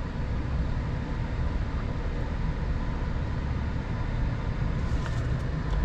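A 2022 Chevrolet Silverado ZR2's 6.2-litre V8 idling while the truck is stopped and held on a slope, heard from inside the cab as a steady low rumble. The low rumble grows louder near the end.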